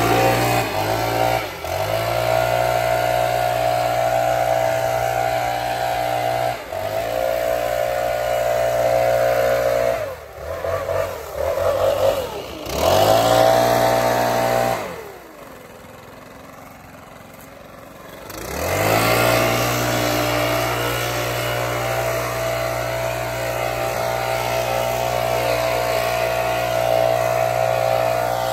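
Leaf blower running at high speed, dipping briefly several times as it is throttled back. In the middle it winds down to a low idle for about three seconds, then speeds back up and runs steadily.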